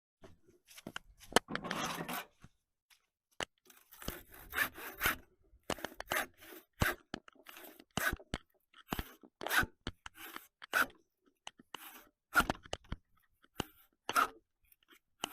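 Hand file rasping across metal clamped in the vise: uneven strokes, about one and a half a second, some ending in a sharp click.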